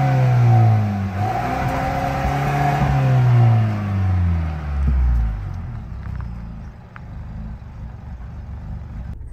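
2021 Ford Bronco's engine revved through its exhaust: the pitch falls from one rev, climbs again about a second in and falls away, then settles to a low steady idle about five seconds in.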